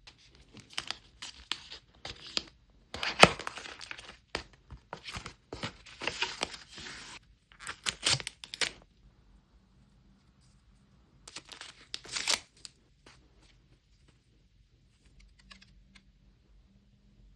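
Packaging being torn open and crinkled by hand in a run of irregular rasps and crackles, loudest about three seconds in. A second flurry comes around twelve seconds, then only a few faint small clicks.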